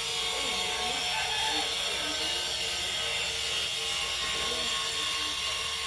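Steady whirring hum of an electric fan running, even and unbroken, with faint background voices coming and going.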